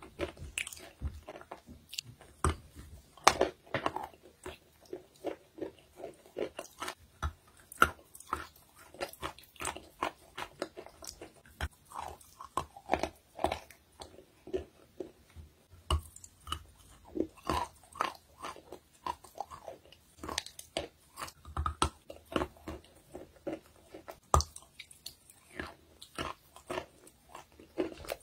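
Close-miked biting and chewing of a chunk of white chalk: many sharp, irregular crunches and snaps, with softer chewing between bites.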